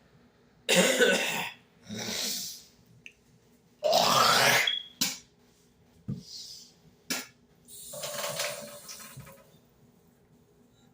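A man forcing out a series of burps, about four of them, the one near the middle the loudest and most strongly pitched, with breaths between and two short sharp clicks in the second half.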